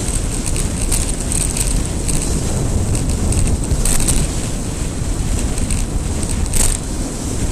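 Wind buffeting the microphone of a bicycle-mounted action camera during a fast road descent: a steady loud rumble, with brief hissy rattles, the sharpest one about six and a half seconds in.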